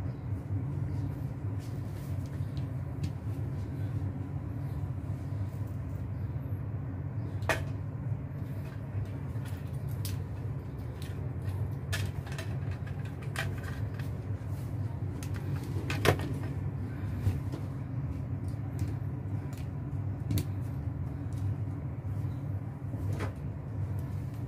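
Steady low rumble of background noise, with a few sharp clicks scattered through it, the loudest about two-thirds of the way in.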